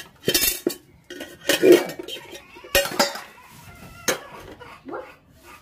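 Metal pots and lids clanking and scraping against each other as they are washed by hand, with several sharp clinks about a second apart.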